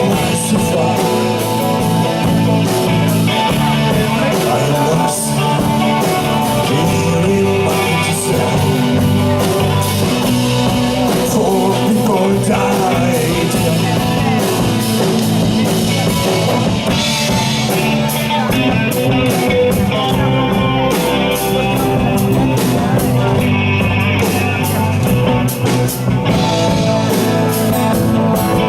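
Live rock band playing, with guitar and drum kit.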